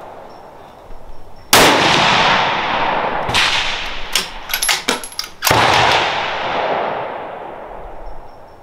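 Two shots from a braked bolt-action precision rifle, about four seconds apart, each followed by a long echoing decay. Between them the bolt is worked: one sharp metallic click, then a quick run of clicks.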